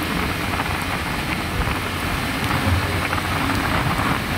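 Motorcycle riding at steady speed on a wet road: the engine is running under a steady rush of wind and road noise.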